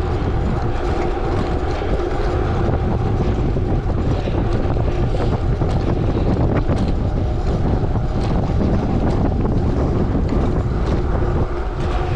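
Heavy wind buffeting the microphone of a gravel bike descending fast downhill, with the steady rumble of tyres on gravel and frequent small clicks and rattles from the bike over the rough surface.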